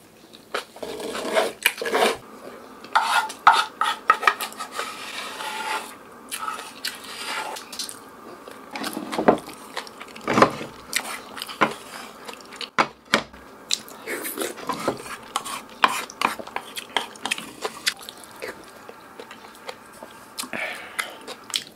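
A spoon scraping and clinking repeatedly against a black stew pot, scooping up the last of the doenjang stew, with chewing in between.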